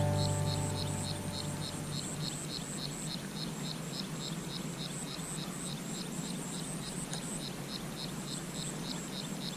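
An insect chirping in a steady rhythm, about four high chirps a second, over a faint background hiss. The tail of guitar music fades out in the first second or two.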